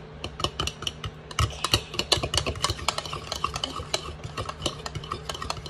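A fork whisking raw eggs in a measuring cup, its tines clicking against the cup quickly and irregularly, several times a second.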